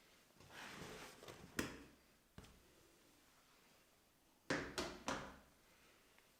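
A soft rustling scrape with a sharp knock about a second and a half in, a lone click a little later, then three quick sharp knocks near the end, like objects being handled and set down.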